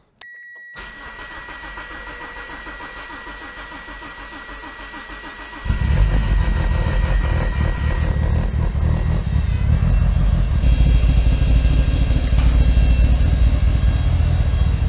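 Car engine cranked on the starter for about five seconds, with a steady high tone, then catching and running loudly on a cold start.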